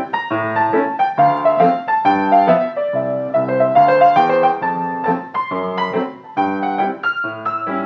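Background piano music: a gentle melody over repeated chords, steady throughout.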